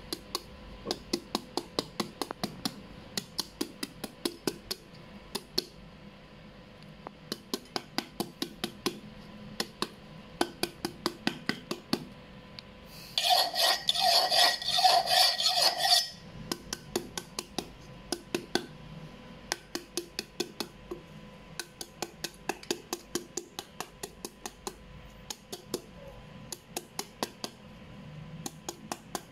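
A large kitchen knife chopping repeatedly into a peeled green papaya held in the hand, sharp taps in quick runs of about four a second, scoring the flesh so it can be shaved into strips. For about three seconds in the middle comes a louder, denser spell of rapid scraping with a metallic ring.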